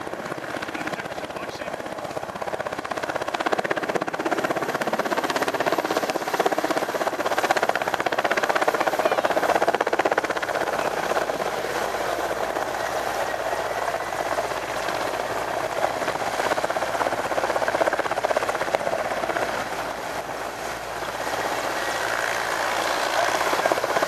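Mil Mi-17 helicopters' main rotors and twin turboshaft engines running in a continuous roar as they fly past, growing louder a few seconds in, easing briefly near the end, then rising again.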